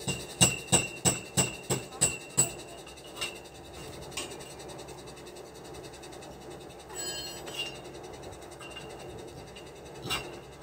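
A hammer striking steel concrete formwork: a quick run of about eight ringing metal blows, roughly three a second. Then a few single strikes.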